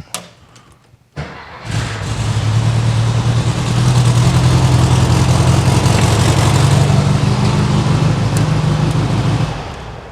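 1968 VW Karmann Ghia's air-cooled flat-four started with the key: the starter turns briefly about a second in, the engine catches almost at once and runs steadily, then stops near the end. It fires now that its fouled ignition points have been cleaned.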